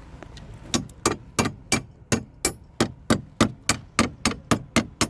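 A steady run of about fifteen sharp taps, roughly three a second, starting about a second in: a hand tool striking a part, as in hammering or tapping during the side-mirror turn-signal repair.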